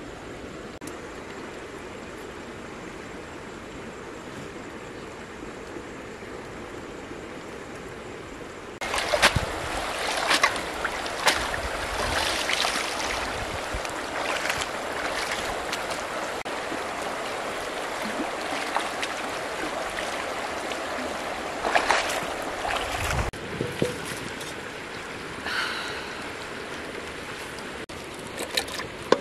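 Running river water throughout. From about nine seconds in there is louder splashing and sloshing in the shallow water for roughly fourteen seconds, with several sharp splashes. Near the end it drops back to a softer steady water sound with a few light knocks.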